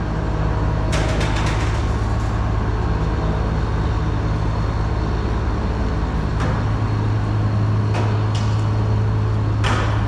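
Case IH 2388 combine's diesel engine running steadily as the machine is driven, with a few clanks and rattles about a second in and near the end.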